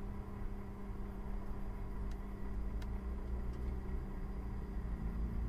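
Cessna 172's engine running steadily, a low even hum and rumble with a couple of faint clicks.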